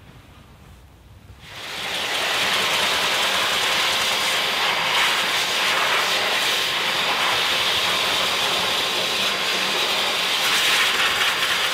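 Car-drying air blower starting up about a second and a half in, then blowing a loud, steady rush of air with a faint motor whine through its hose nozzle at the front grille of a freshly washed car.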